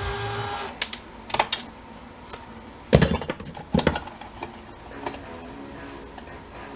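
A small motor's steady whir stops about half a second in, followed by scattered clicks and knocks of tools and small metal parts being handled while a bolt and nut are taken off, the loudest knock about three seconds in.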